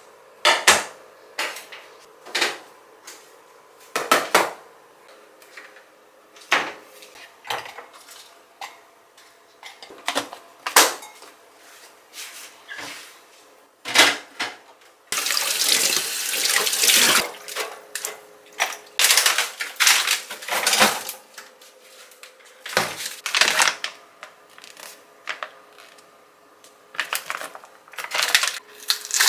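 Kitchen handling sounds: dishes and utensils clinking and knocking as they are picked up and set down on the counter, with a tap running into a stainless steel sink for about two seconds about halfway through.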